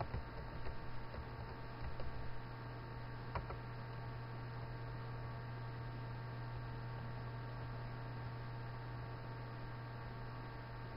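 Steady low electrical hum on the microphone, with a few faint clicks in the first few seconds.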